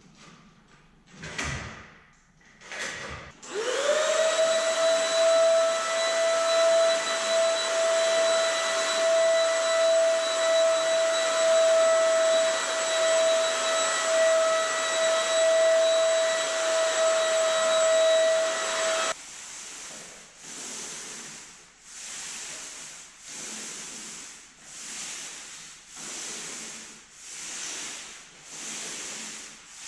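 A high-speed electric motor spins up, its pitch rising for a moment, then runs loud and steady with a high whine for about fifteen seconds before cutting off abruptly. Short rhythmic strokes follow, about one a second, and a few similar strokes come before the motor starts.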